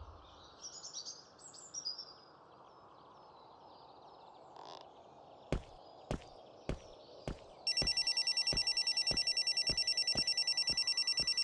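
A mobile phone ringing with a rapidly pulsing electronic trill, starting a little past halfway and going on until just before the end. Under it, footsteps on paving click about every 0.6 s, and birds chirp faintly near the start.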